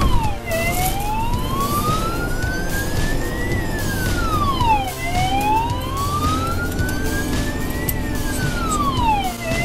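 Fire engine's siren wailing, heard from inside the cab over the engine's steady rumble: each wail climbs slowly for about three seconds and drops back quickly, about every four and a half seconds.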